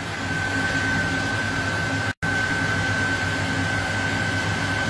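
Steady fan-like whir with a constant high whine and a low hum, cutting out for an instant about two seconds in.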